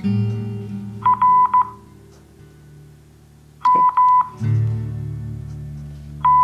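Morse code practice tones: three short groups of high, steady beeps, each a mix of short dits and longer dahs, about a second, near four seconds and near the end, with long pauses between characters as in Farnsworth-timed copying practice. Background guitar music plays underneath.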